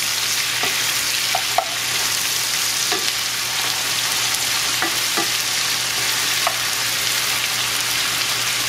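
Shrimp and sliced onions sizzling steadily in a cast-iron skillet while being stirred with a wooden spoon, which knocks against the pan a few times.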